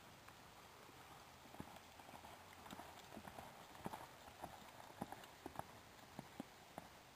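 Hoofbeats of a horse cantering on turf and dirt. They grow louder and closer toward the middle as it goes over a small jump, then fade away.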